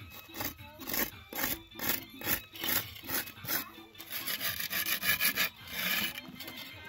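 Rhythmic rasping strokes, about three a second, with a longer drawn-out stroke about five seconds in.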